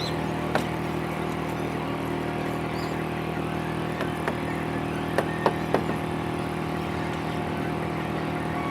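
CNC router running at a steady pitch while cutting MDF, with a few sharp ticks, mostly in the second half.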